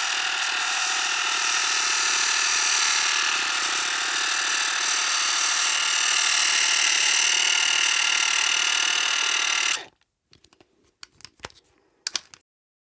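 Spring-wound 8mm turret cine camera running: a steady mechanical whirr of the clockwork motor and film transport, with many high even tones, that stops abruptly nearly ten seconds in. A few faint clicks follow near the end.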